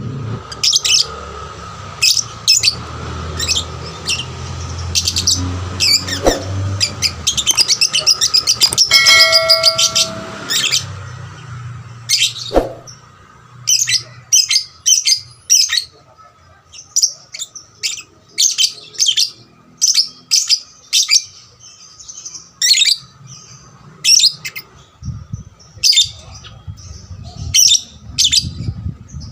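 Young lovebird chirping in quick series of short, sharp, high-pitched calls, on and on.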